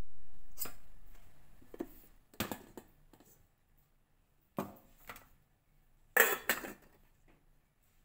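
Stainless steel plate and lid being handled on a table: a series of light metal knocks and clinks, about six in all, the loudest two close together near the end.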